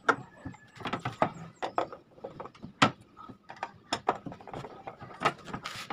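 Wooden cabinet doors and their metal hinges handled by hand: irregular clicks, taps and knocks of wood and hinge hardware, the sharpest near the start and about three seconds in.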